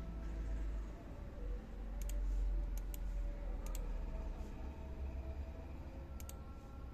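Computer mouse clicked four times, each click a quick pair of ticks, over a low background rumble.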